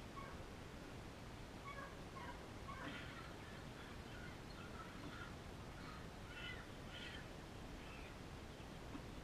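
Faint, short animal calls, repeated irregularly from about two seconds in until near the end, over a steady low background noise.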